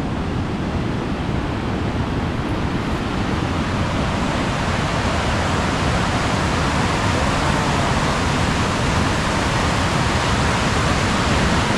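Creek water rushing over rocks, a steady, loud, even hiss.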